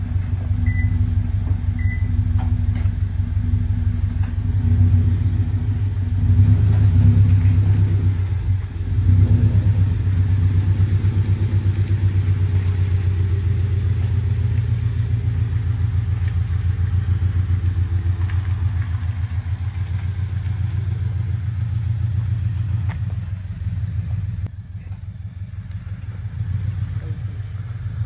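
2022 Toyota GR86's 2.4-litre flat-four running at idle through catless Tomei unequal-length headers and a Remark axle-back muffler delete, giving a deep, uneven boxer rumble. It swells louder a few times in the first ten seconds.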